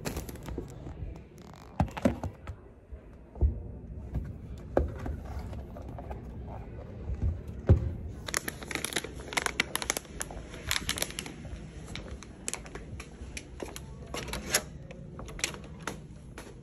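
Typing on a laptop keyboard: scattered knocks and taps in the first half, then a dense run of quick key clicks through the second half.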